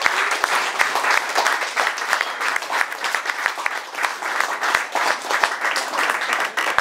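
A small audience applauding, many hands clapping.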